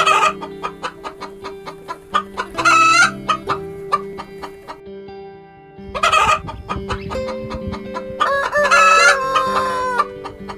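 Roosters crowing and chickens clucking, with the longest crow about eight seconds in, over background music.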